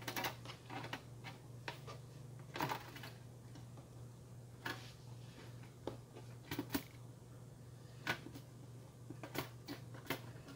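Aluminium bottom case of a MacBook Pro being shifted and fitted onto the laptop's chassis: scattered light clicks and taps of metal on metal, the loudest a few seconds in and again near the end. A low steady hum runs underneath.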